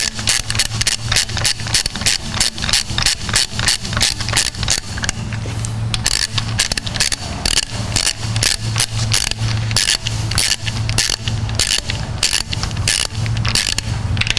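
Hand ratchet clicking steadily, several clicks a second, as bolts are run down on an engine's rear thermostat housing.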